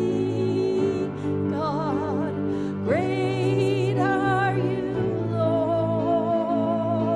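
A man and a woman singing a worship song over chords on a Casio Privia digital piano, with long held notes, some with vibrato, and a voice sliding up into a note about three seconds in.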